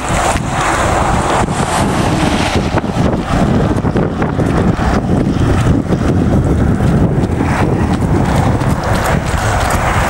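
Wind buffeting the microphone in a steady low rumble, with runners' footsteps slapping on the asphalt road.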